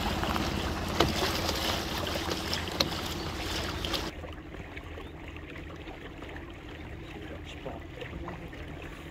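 Small open boat under way: a steady low motor hum with water rushing and wind on the microphone. The rush is loud for about the first four seconds, then drops away sharply, leaving the hum and lapping water.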